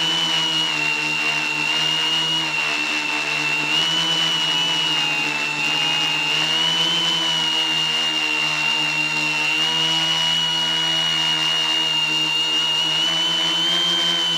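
Quadcopter's electric motors and propellers buzzing steadily in flight, a high whine that wavers slightly in pitch, heard up close from the camera mounted on the airframe.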